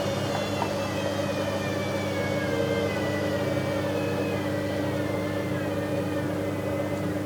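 Bauknecht WA 7778 W front-loading washing machine running, its motor whine sliding slowly down in pitch over a steady low hum as the drum loses speed. The machine's drum bearing is beginning to wear, not yet badly.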